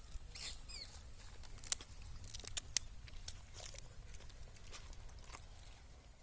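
Roasted peanut shells being cracked and peeled open by hand: a scatter of small sharp cracks and crackles, a few louder snaps about two seconds in.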